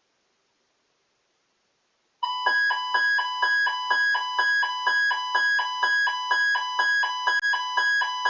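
Weather radio receiver's electronic alert tone: a rapid two-note chime, high and low notes alternating about three times a second, starting about two seconds in and running for about six seconds, as it goes off for a weekly test alert.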